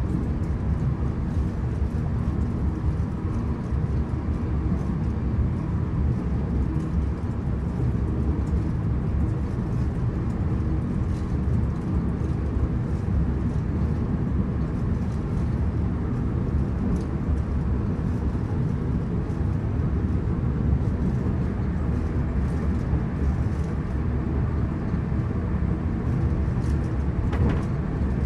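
Cabin interior of a Hitachi AT300 electric multiple-unit train running along at speed: a steady low rumble from the wheels and running gear, with a few faint ticks and rattles.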